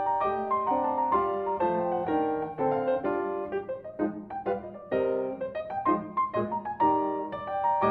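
Grand piano played solo: a melody over chords, notes struck in quick succession.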